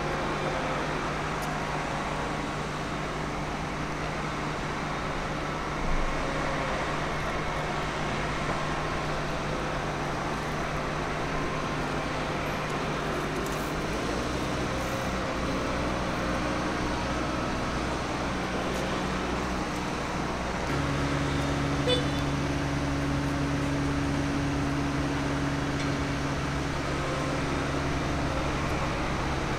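Diesel engines of a Liebherr 924 crawler excavator and a tipper truck running steadily while the excavator loads the truck. The hum changes pitch about halfway through and grows a little louder later, with two short knocks, one about six seconds in and one near the last quarter.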